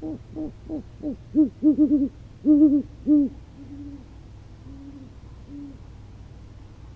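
A pair of great horned owls hooting to each other in a duet: a quick run of loud, deep hoots through the first three seconds or so, answered by a few softer, flatter, longer hoots.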